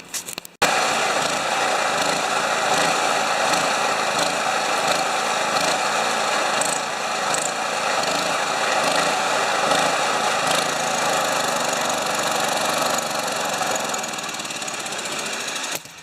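A power tool running steadily under load, with a loud, even whirring that cuts off abruptly near the end.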